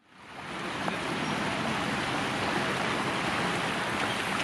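Steady rush of running water, fading in over the first half second and then holding even.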